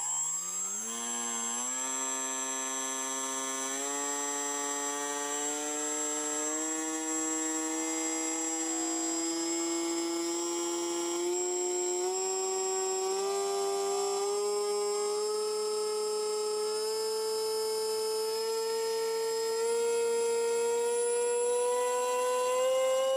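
Electric motor and propeller of a Horizon Hobby AeroScout S2 RC plane being throttled up slowly: a whine that climbs steadily in pitch, with a steady high-pitched tone above it. The propeller is balanced with two strips of electrical tape.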